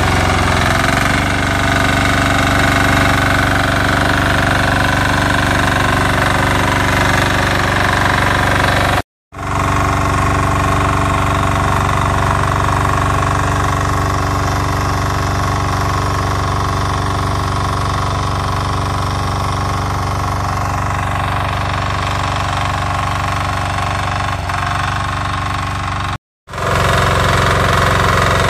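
Weima 12 hp single-cylinder diesel engine of a BSR 1100 BE walk-behind tiller running steadily under load as the tines churn through the soil. The sound is broken twice by a brief silence.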